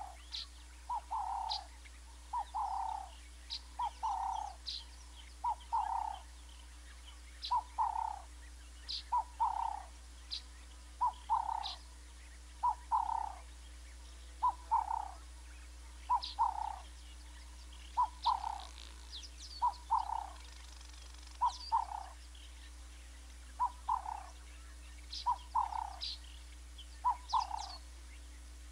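A frog calling, one short note at a time, repeated at a steady pace of roughly one a second, with brief high bird chirps now and then.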